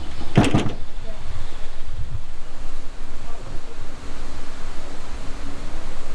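Ford Maverick's 2.0-litre EcoBoost turbocharged four-cylinder running on the move, under a steady low rumble of road and wind noise. A brief sharp sound comes about half a second in.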